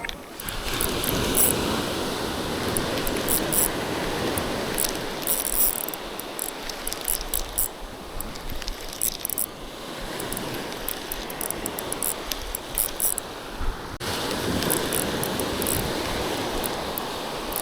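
Fishing reel being cranked to bring in a hooked fish, its mechanism clicking and whirring over a steady rushing noise.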